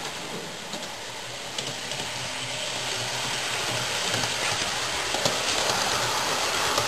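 Model HST train running along the track, its small electric motor and wheels making a steady whirring that grows louder as it approaches and passes, with a few light clicks.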